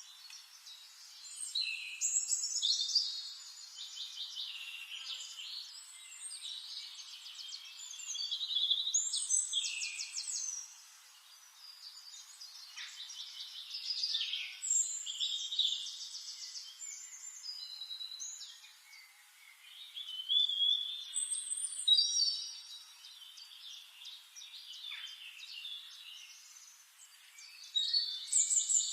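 Forest birds singing: overlapping chirps, rapid trills and whistled phrases come in bouts every few seconds, with quieter chirping between them.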